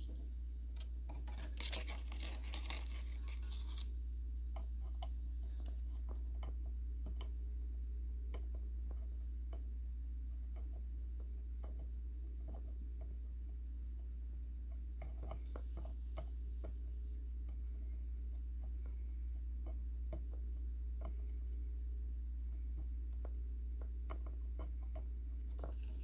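Quiet hand work on a circuit board with a soldering iron: scattered faint clicks and ticks over a steady low hum, with a short hiss a couple of seconds in.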